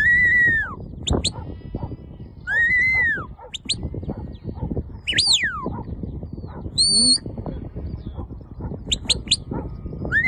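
Shepherd's whistle commands to a working sheepdog: a rising-then-falling whistle repeated three times, a sharp up-and-down whistle about five seconds in, and several short quick pips, over a rough, noisy background.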